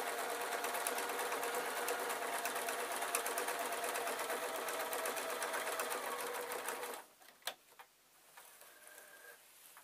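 Basic domestic electric sewing machine stitching through layered quilt fabric, running steadily at a fast stitch rate and stopping about seven seconds in. A few soft clicks and fabric rustles follow.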